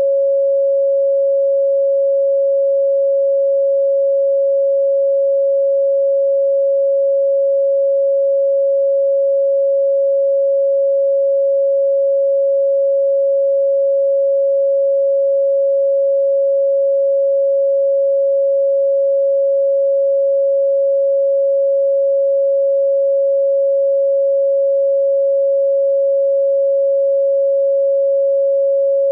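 Steady synthetic sine tone at about 552 Hz, the 551.994 Hz 'plant frequency' assigned to Bai Qian (Cynanchum root), held at a constant loud level, with a fainter steady high tone near 4 kHz above it.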